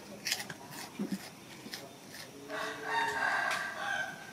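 A rooster crowing once, one long drawn-out call starting about two and a half seconds in, with a few faint clicks before it.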